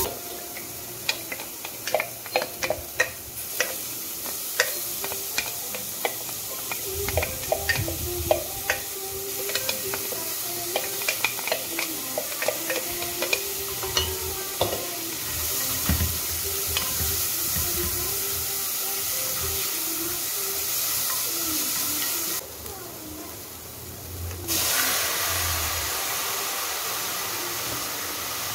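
Crushed onion sizzling in a cast-iron pot, with a wooden spoon clicking and scraping against the iron as it is stirred. About three-quarters of the way through, raw chicken pieces go into the pot and a louder, steady sizzle follows.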